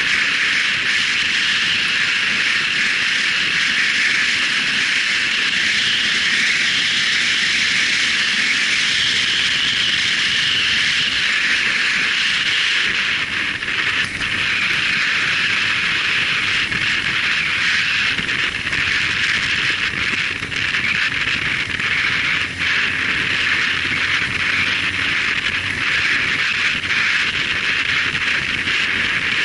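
Steady rushing wind and road noise from a motorcycle riding through traffic, picked up by a Sony HDR-AZ1 action camera's microphone, with no distinct engine note standing out.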